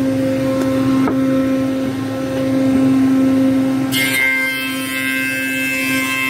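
Four-sided planer (moulder) running with a steady, loud machine hum. About four seconds in, a higher whine joins.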